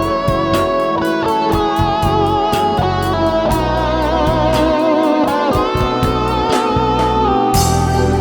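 Electric guitar music: picked melodic notes with a wavering vibrato over a bass line. About seven and a half seconds in, the sound changes to a fuller, hazier texture.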